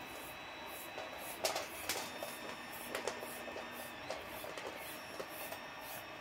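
A few light clicks and knocks of hands handling a rubber timing belt and 3D-printer frame parts, the sharpest about a second and a half in, over a faint steady hiss.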